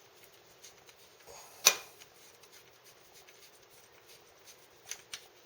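Light handling sounds of small parts and tools, with one sharp click about a third of the way in and a few faint clicks near the end.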